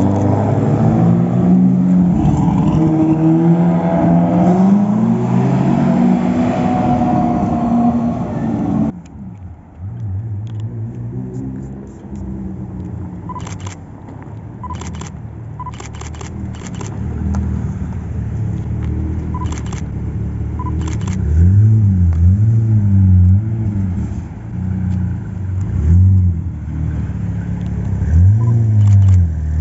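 Supercar exhaust: a car accelerating hard, the engine note climbing again and again through the gears. Then an abrupt change to a quieter running engine with sharp cracks, given short throttle blips about two-thirds of the way in and near the end.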